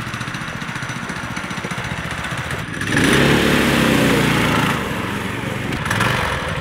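Small Predator 212 single-cylinder four-stroke engines on a four-engine go-kart running, steady at first. About three seconds in they get louder and rev up, ease off just before five seconds, and rise again near the end.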